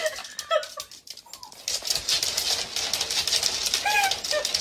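Rapid clicking and scrabbling of a small dog's claws on a hardwood floor as it pulls against a cat gripping its coat, heavier from about two seconds in. A few short, high animal whines are heard over it.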